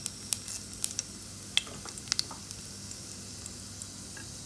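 Cumin seeds sizzling and spluttering in hot oil and melted butter in a pan: a steady hiss with sharp crackles and pops, which grow sparse after about two seconds.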